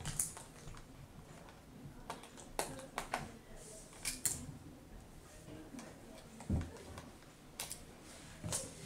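Scattered sharp plastic clicks and light knocks from handling a laptop's screen assembly and small screws, with one dull thump about six and a half seconds in.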